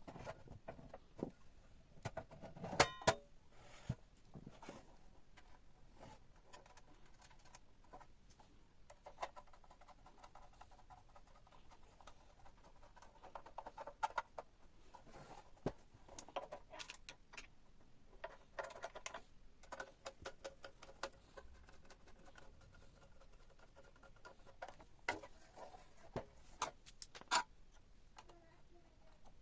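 Faint scattered clicks, taps and light rattles of small hardware being handled, loudest about three seconds in and again near the end. A faint steady hum comes in for a few seconds at a time.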